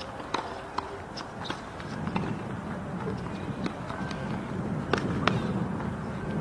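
A tennis ball bouncing on a hard court: a run of sharp, briefly ringing pocks about 0.4 s apart, then two louder ones near the end, over a low steady background rumble.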